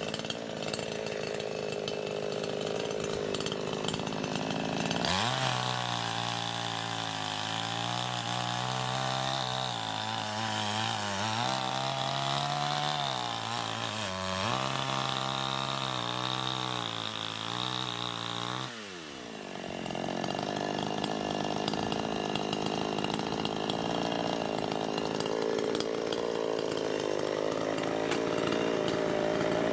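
Two-stroke chainsaw engine running. It holds a steady high note at first, then about five seconds in drops to a lower, wavering note as the chain cuts into a log. About two-thirds of the way through the note falls away sharply, then steady high running returns.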